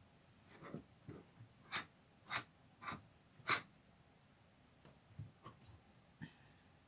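Irregular light clicks and taps of curtain-rod hardware being handled, about a dozen in all, the sharpest four coming roughly half a second apart in the middle.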